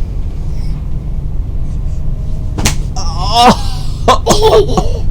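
A sharp knock, then a baby's high squeal that slides down in pitch, followed by more short baby vocal sounds, over a steady low hum.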